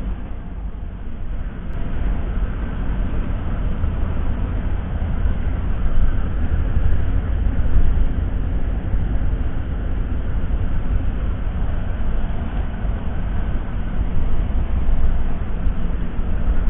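Steady low rumble of a Mercedes-Benz OH 1626 coach's diesel engine and road noise while the bus is under way, rising and falling gently in level.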